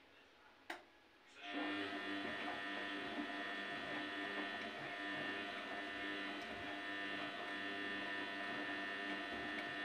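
Front-loading washing machine's drum motor starting up about a second and a half in, after a short click, then running at a steady speed with a constant whine as the drum turns the wet blanket.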